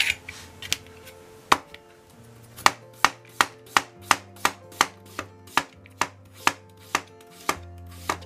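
Kitchen knife slicing daikon radish on a plastic cutting board: sharp knocks as the blade hits the board. A few spaced cuts come first, then a steady run of about three cuts a second.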